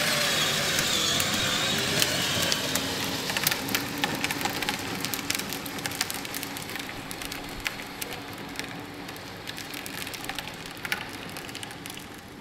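A child's battery-powered ride-on toy car driving on asphalt: its hard plastic wheels rattle and grind with many small clicks over a faint whining electric motor. It grows steadily fainter as the car moves away.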